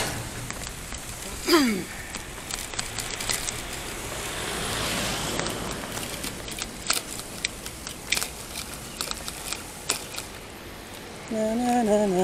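Riding a bicycle along a paved path: scattered clicks and knocks, likely the bike and camera mount rattling over bumps, over a steady wind and road noise. A passing vehicle swells and fades about halfway through, and a brief voice comes in near the end.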